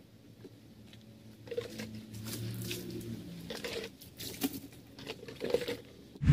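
Water poured from a plastic dipper splashing and pattering into the plastic liner of an old refrigerator shell as it is rinsed out, in irregular splashes.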